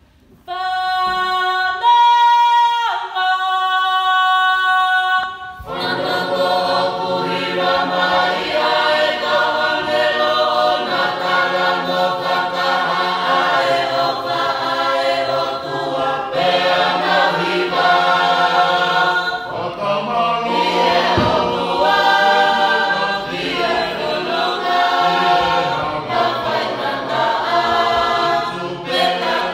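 Mixed church choir singing a Tongan hymn a cappella in parts. It opens with a few clear, steady held notes that change pitch twice, then about six seconds in the full choir comes in together in harmony.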